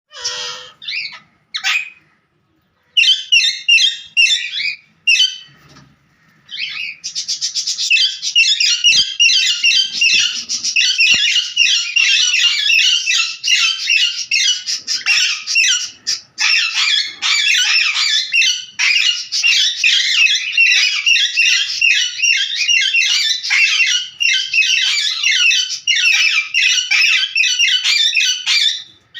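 Birds calling and chattering: a few separate bursts of quick, high squawking calls, then nonstop dense chatter from about seven seconds in.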